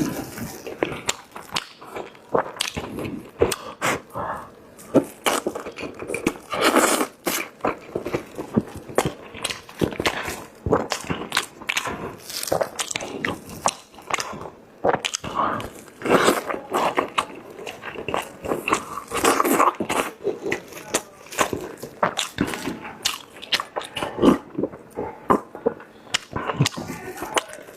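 Close-miked eating of braised chicken drumsticks: chewing, biting and lip-smacking, with many quick wet clicks.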